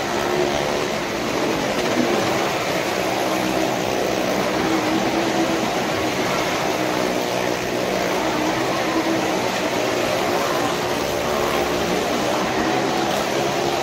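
A car and motorcycles running their engines as they circle the vertical wooden wall of a well-of-death pit, a loud steady drone of several engines together.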